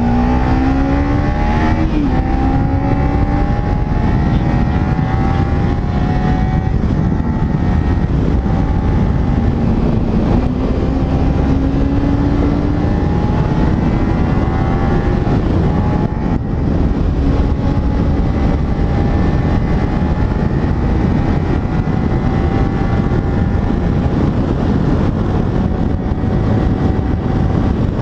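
Kawasaki Ninja 300 SE's parallel-twin engine under way, its note climbing slowly and dipping at gear changes about two and ten seconds in. Heavy wind rumble on the microphone underneath.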